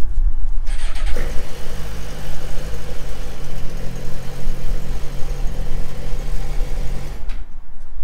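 A motor running steadily, a low hum with hiss over it. It starts about a second in and cuts off suddenly about seven seconds in.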